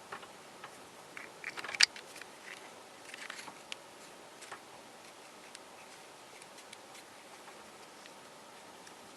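Cast polyurethane resin puzzle pieces clicking and tapping against each other as they are handled. A quick cluster of clicks about one and a half to two seconds in, the loudest near two seconds, more clicks around three seconds, then only occasional faint ticks.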